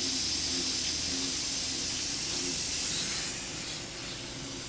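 Steady hiss of compressed air from the pneumatic lines and fittings that hold the clutch packs and bands of a running Ford C4 transmission model, with a faint hum beneath; the hiss drops off about three and a half seconds in.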